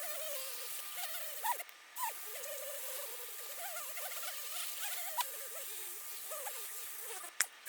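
Fine polishing compound being rubbed by hand over a clear plastic model part: a steady rubbing hiss with small squeaks that wobble in pitch.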